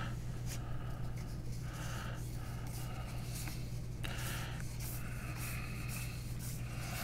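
Soft rubbing and sliding of trading cards being handled and flipped through, over a steady low electrical hum.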